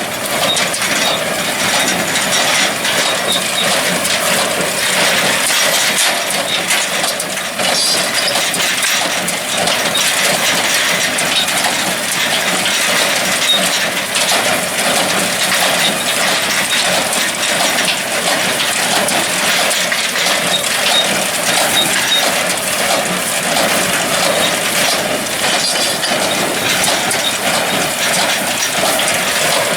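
New Holland hay baler at work, a steady mechanical clatter dense with quick metallic clicks and knocks.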